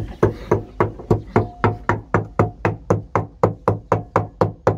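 Wooden pestle pounding coarse salt and red chilies in a white ceramic bowl, grinding them into chili salt for a dipping sauce. Steady, even knocks, about four a second.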